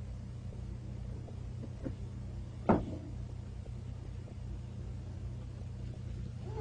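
A single sharp knock, like a hard case being handled, about two and a half seconds in, preceded by a faint tap, over a steady low hum.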